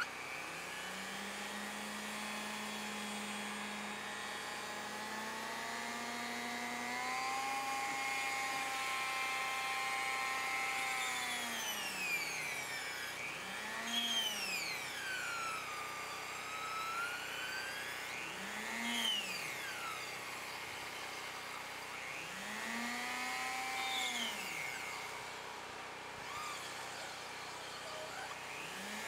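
Dremel-type rotary tool grinding wood, its motor whining steadily at first. From about halfway through, the pitch several times falls sharply and climbs back.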